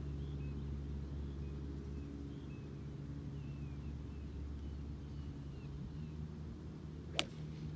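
One sharp, crisp click about seven seconds in: a Callaway Rogue ST Max iron striking a golf ball. Underneath runs a steady low hum, with faint bird chirps in the first few seconds.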